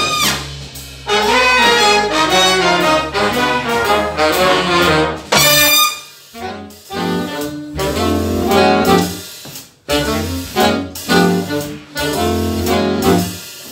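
Live jazz big band playing: saxophones, trumpets and trombones over bass and drums, in loud ensemble phrases broken by short pauses.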